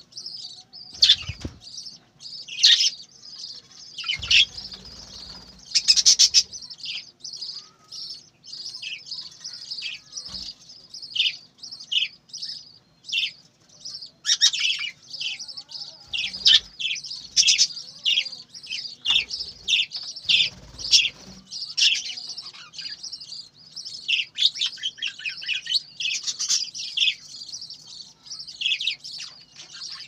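A flock of budgerigars chattering with fast, overlapping chirps, and a few short bursts of wing flapping as birds fly between perches.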